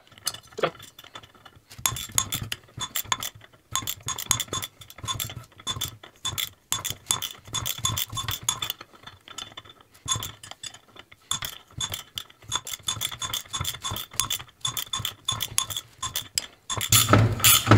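Rapid runs of small metallic clicks and clinks as a wrench turns the forcing bolt of a pulley puller, pressing the pulley off a power steering pump shaft. The clicking comes in short bursts with brief pauses and grows louder near the end, as the pulley gives.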